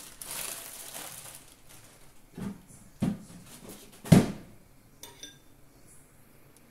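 Kitchen clatter of cookware and utensils: a soft hiss at the start, then three sharp knocks about a second apart, the last the loudest, and a few faint clinks after.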